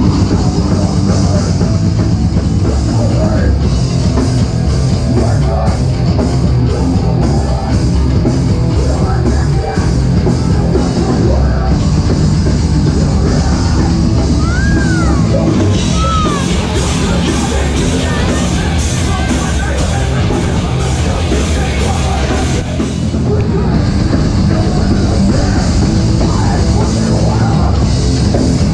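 Metalcore band playing live at full volume: distorted guitars, bass and drum kit. About halfway through come two short squeals that rise and fall, and the cymbals grow louder for several seconds after.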